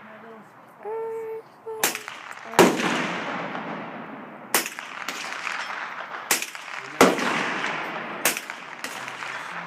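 Rifle gunfire from an AR-15: about seven sharp shots at uneven intervals. The two loudest, in the first half and about two-thirds through, each roll away in a long echo.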